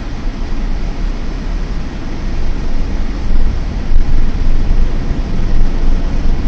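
Steady low rumble of a car's engine and road noise as it drives in town traffic, heard from inside the cabin through a dash cam's microphone.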